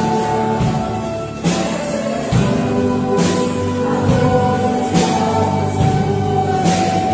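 Live church band of piano, drums, bass and guitars playing a slow song with a mixed choir singing held chords. A cymbal crash comes about every one and a half to two seconds.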